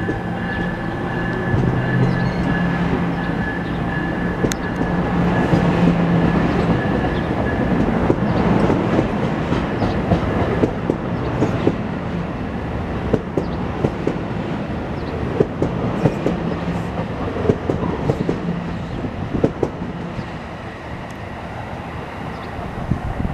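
NJ Transit bi-level passenger coaches rolling past close by as the train pulls out of the station, with many quick wheel clicks over the rail joints. A steady whine is heard for the first several seconds and then fades, and the train noise eases off near the end as the cab car draws away.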